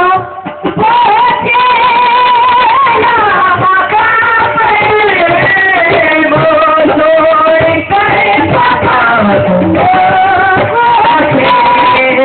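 Sufi devotional singing in the qawwali style: a voice in long, ornamented held notes that slide between pitches, with instrumental accompaniment.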